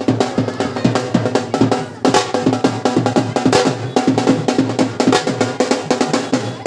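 Music led by fast, dense drumming, the strokes coming several times a second over a steady low bass.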